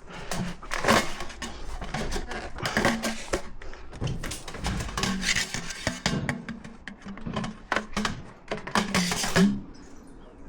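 Irregular clattering and knocking of hard objects being handled, with occasional short low squeaks, stopping near the end.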